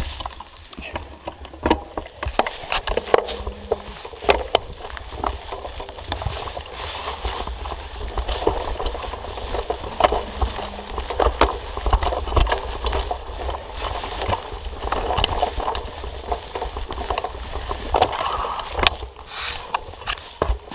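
Mountain bike ridden over forest singletrack: the tyres run over leaf litter and twigs while the bike rattles and clicks over bumps, with a steady low rumble of wind on the camera microphone.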